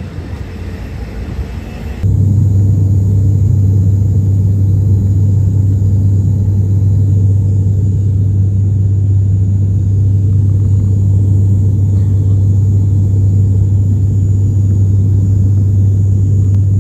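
A quieter rumble of a jet airliner on the ground, then an abrupt cut about two seconds in to the loud, steady low drone of an ATR 72 turboprop's propellers and engines heard inside the cabin in cruise.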